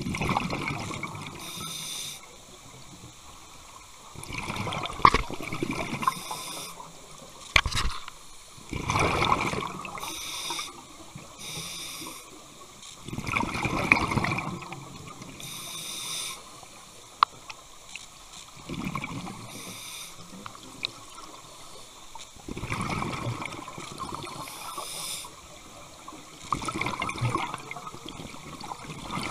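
Scuba diver breathing through a regulator underwater: bursts of exhaled bubbles alternating with the hiss of inhalation, about every four to five seconds. A few sharp clicks stand out between breaths.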